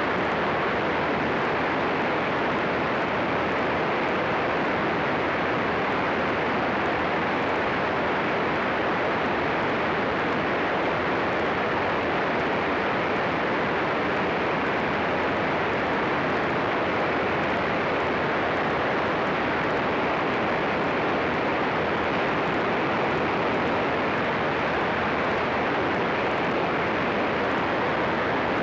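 Steady engine and airflow noise of a light propeller aircraft in cruise flight, even and unchanging throughout.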